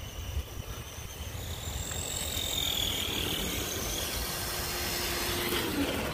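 Electric RC scale crawler truck's motor and gears whining as it drives along the trail, the high whine rising and falling in pitch and growing louder as the truck comes close. Wind rumbles on the microphone.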